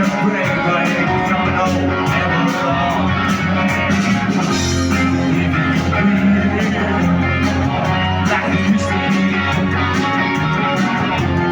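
Live rock band playing: guitars over a steady bass line, with a drum kit keeping an even beat.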